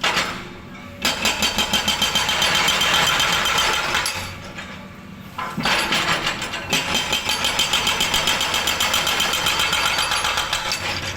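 Hydraulic jackhammer hammering in rapid, even strokes, in two long runs: it stops about four seconds in and starts again about a second and a half later.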